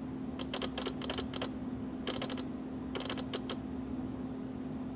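Quick clicking from a computer's keys or mouse as a document is scrolled down, in three short runs over the first three and a half seconds. A steady low hum runs underneath.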